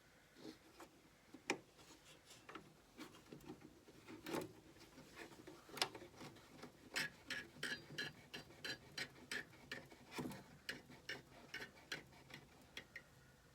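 A faint series of light clicks or taps, scattered at first, then settling about halfway in into a steady rhythm of about two to three a second.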